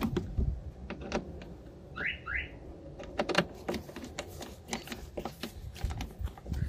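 Hand screwdriver driving a self-tapping screw into a plastic mudflap, with a run of irregular clicks and ticks. Two short rising squeaks come about two seconds in.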